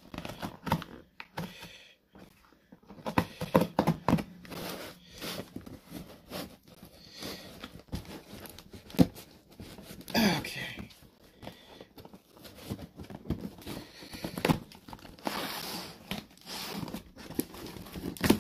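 Packing tape on a cardboard box being cut with a knife and torn away, with crinkling and scraping of cardboard as the flaps are worked open. Irregular knocks of the box against the table, the sharpest about halfway through.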